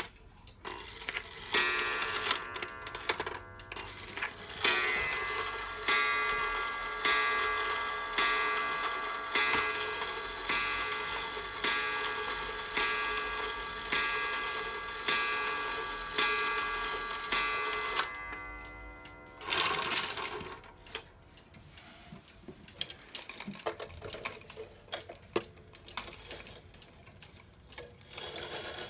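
Carved wooden cuckoo clock striking twelve after its hands are set to the hour: about a dozen strikes a little over a second apart, each with a ringing tone, then the clock ticking.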